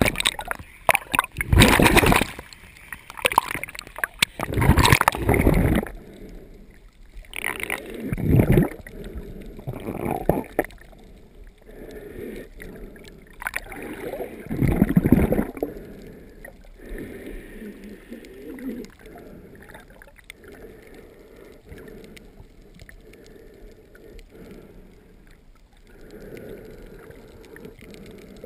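Muffled underwater water sound picked up by a submerged action camera: water gurgling and rushing past in irregular surges, strongest in the first few seconds and again about 15 s in, then faint.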